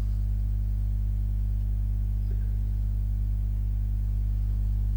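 Steady low electrical hum, a deep tone with fainter higher overtones, with no other sound over it.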